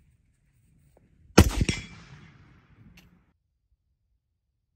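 A gunshot, followed about a third of a second later by a sharp hit on an AR500 steel target. The steel rings briefly as it fades.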